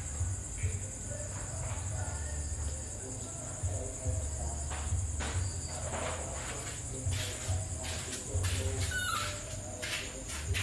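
A steady, high-pitched chorus of insects trilling, over an uneven low rumble on the microphone. In the second half come several sharp clicks and a short falling squeak.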